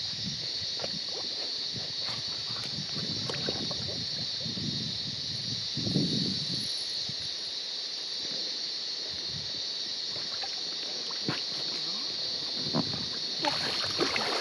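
Cicadas buzzing in a steady high drone, with shallow river water sloshing and splashing around legs, swim fins and a small inflatable boat as it is boarded.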